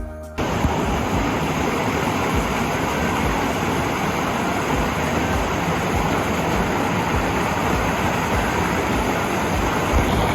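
Steady rush of a waterfall, starting abruptly about half a second in, with irregular low thumps of wind buffeting the microphone.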